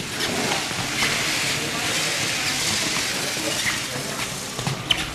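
An épée bout in progress: the fencers' shoes scuffing and tapping on the piste as they move, with a few sharp clicks near the end, over the chatter of a sports hall.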